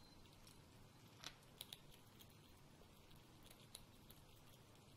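Eurasian red squirrel chewing a piece of walnut: faint, crisp crunching clicks. A few sharper cracks come around a second and a half in and again near four seconds.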